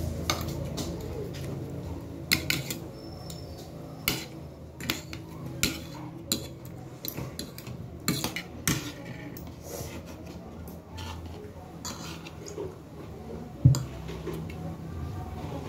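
Metal spoon and fork clinking and scraping on a plate of rice as someone eats, in irregular taps, the sharpest one near the end.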